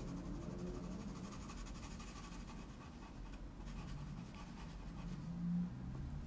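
Pencil scratching on paper in quick, short, rapid strokes, strongest over the first half, as the dark of the pupil is layered in. A brief low hum comes near the end.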